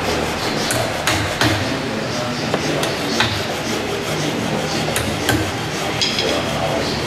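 Hammer blows on the timber of a wooden ceremonial royal boat under construction: a handful of sharp, irregular knocks over a steady background din.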